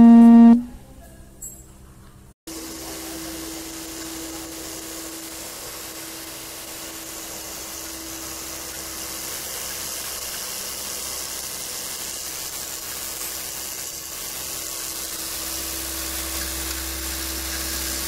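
A loud steady electronic tone for the first half second, then, after a short lull, a steady machine hum and hiss with a constant tone: the automatic zipper slider mounting machine and its vibratory slider-feeding bowl running.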